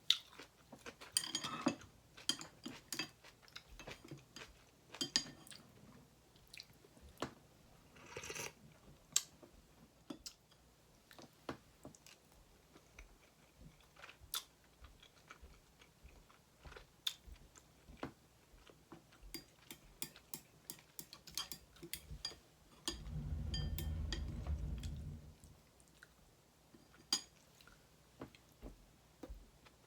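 Close-miked chewing and eating mouth sounds, with many small wet clicks and smacks and a couple of brief crunchier bites early on. About three-quarters of the way through, a low muffled rumble lasts about two seconds.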